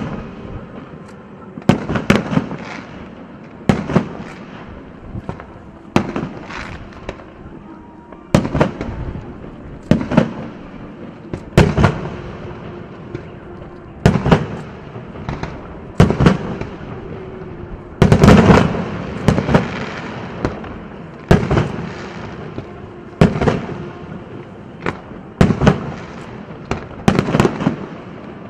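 Aerial firework shells bursting in a steady series, a sharp bang about every two seconds, each trailing off briefly, with a denser flurry of bangs about two-thirds of the way through.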